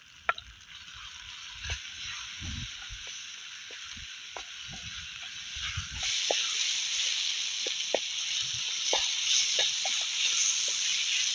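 Diced vegetables frying in a steel pan over a wood campfire, sizzling steadily with scattered pops and crackles. The sizzle gets louder about six seconds in.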